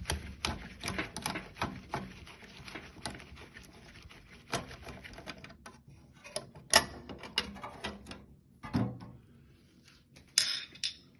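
Irregular clicks, light knocks and small metallic clatter from a screwdriver and parts being handled while a screw is taken out inside a microwave oven. The clicks are dense at first and thin out, with a louder knock about seven seconds in and a short scrape near the end.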